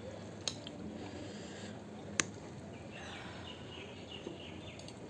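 Low room noise with two short clicks, a small one about half a second in and a sharper one just after two seconds.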